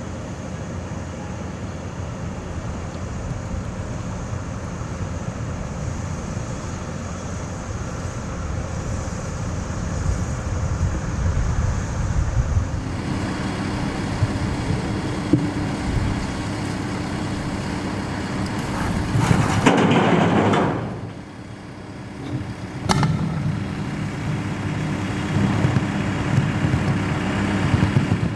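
Heavy construction machinery engine running steadily, getting louder about halfway through, with a loud noisy burst of about a second around two-thirds of the way in and a sharp knock shortly after.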